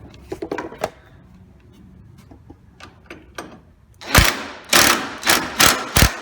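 Cordless impact driver with a hex-key bit run in a series of short bursts, driving in the hex bolts of a tailgate assist bracket gently rather than fully torquing them. Light clicks of the bit being fitted come first; the bursts start about four seconds in, roughly two a second.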